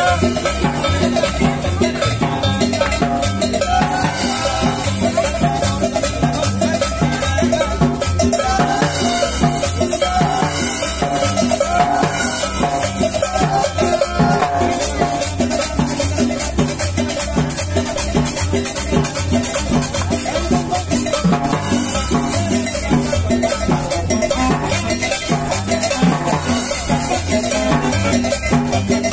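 Live cumbia from a small street band: a drum kit keeps a steady dance beat under a repeating bass line and a melody, without a break.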